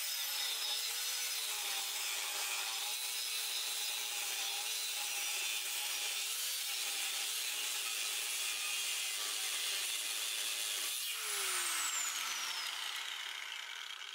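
Angle grinder with an abrasive cut-off wheel cutting into a steel bar, a steady grinding with the motor's pitch wavering under load. About eleven seconds in the wheel comes off the work and the motor winds down with a falling whine.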